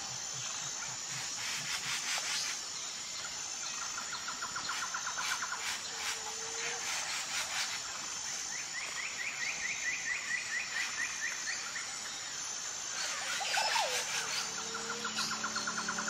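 Outdoor nature ambience: a steady high insect hum with several rapid trilling calls of a few seconds each, short chirps and scattered clicks.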